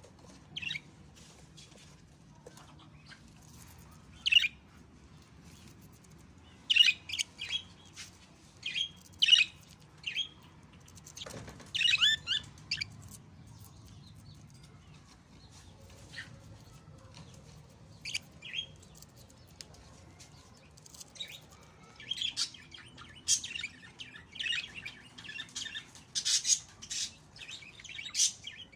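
Budgerigars chirping in short, scattered bursts, which come more thickly in the last several seconds.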